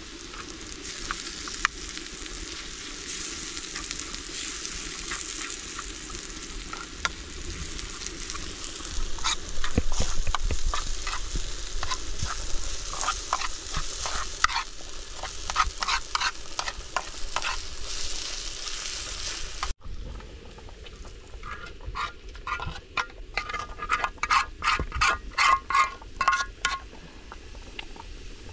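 Food frying in a pan with a steady sizzle while a spoon stirs and scrapes against the pan in runs of quick strokes. The sizzle drops out suddenly about twenty seconds in, and a fast series of scraping strokes with a slight metallic ring follows.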